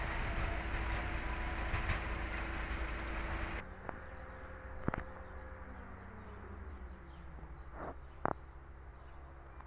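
Regional electric train coming along the tracks close by, a steady hum over rail and running noise, which cuts off abruptly about a third of the way in. After that, a quieter open-air background with a few sharp clicks and a faint falling tone.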